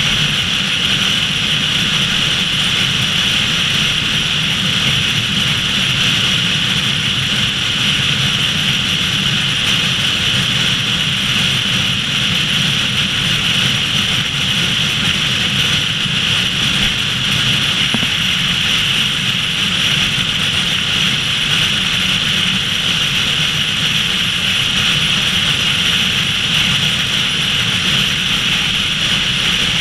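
Steady wind rush and tyre roar of a car cruising at highway speed, with an even hiss that neither rises nor falls.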